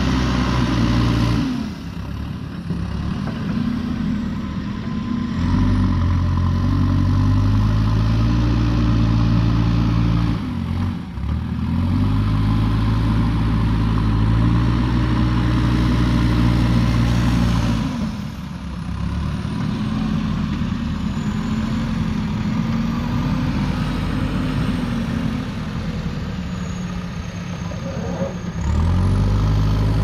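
JCB 3DX backhoe loader's diesel engine working under load, its revs rising high and then falling back to quieter, lower-revving stretches several times.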